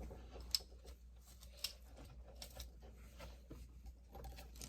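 Plastic fidget toys being handled and set down: light rustling with a few scattered sharp clicks, the loudest about half a second in.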